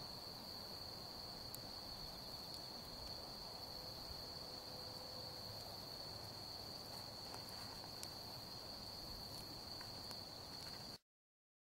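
Insects calling in a steady, unbroken high-pitched trill over a faint outdoor hush, with a few faint ticks; it all cuts off abruptly near the end.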